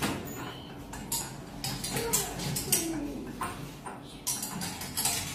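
Small rings clicking and clinking irregularly as they are hung one after another onto pegs.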